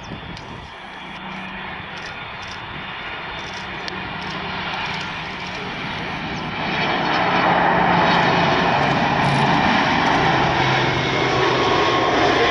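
Airbus A300-600F freighter's twin turbofan jet engines on landing approach, a rushing jet noise that grows much louder about two-thirds of the way through as the aircraft comes close. A low hum under it slides down in pitch as the aircraft passes.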